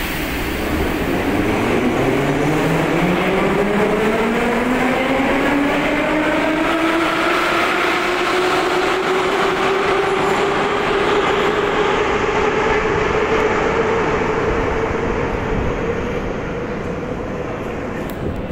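Retro metro train pulling out of the station: its traction motors whine, rising steadily in pitch as it accelerates, over the rumble of wheels on the rails. The sound eases a little near the end as the train runs off into the tunnel.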